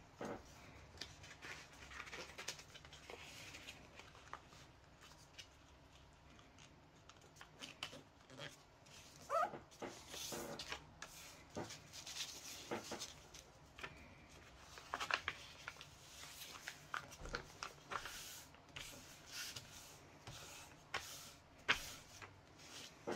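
A sheet of paper being folded and creased by hand on a wooden bench: intermittent soft rustles, crinkles and light taps of paper and fingers against the wood, with a brief squeak about nine seconds in.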